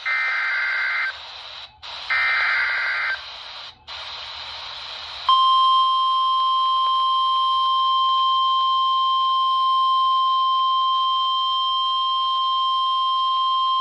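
NOAA Weather Radio Emergency Alert System signal received on a RadioShack 12-254 weather radio. Two one-second bursts of the SAME digital header's warbling data tones come over a steady static hiss. About five seconds in, the steady warning alarm tone near 1 kHz starts and holds, the signal that a warning (here a severe thunderstorm warning) is about to be read.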